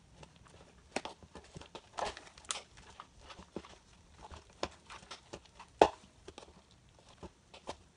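Metal fork tapping and scraping against a plastic mixing bowl while mashing cream cheese into shredded cheddar: irregular light clicks, the loudest about six seconds in.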